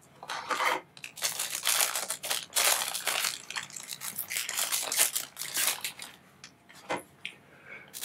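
Thin clear plastic bag crinkling and rustling in irregular bursts as a digital caliper is unwrapped from it, then one short click near the end.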